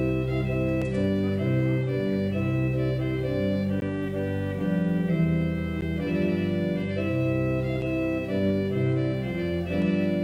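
Church organ playing slow, sustained chords over a bass line on the pedals, the harmony shifting every second or so.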